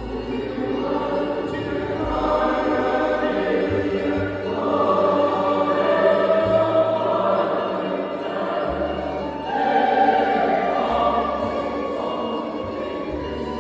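Choir singing over instrumental accompaniment, with held low bass notes that change every second or two.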